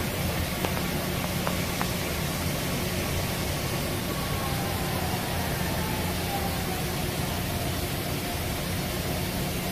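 Pietro Carnaghi ATF-14 TM CNC vertical turn-mill running, its table spinning a large round workpiece: a steady machine noise with a low hum and a faint whine that slowly dips and rises in pitch.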